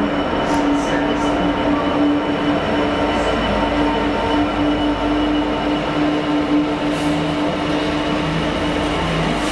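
Freightliner Class 66 diesel locomotive passing close by, its two-stroke V12 engine running with a steady hum, then its empty container flat wagons rolling past over the rails.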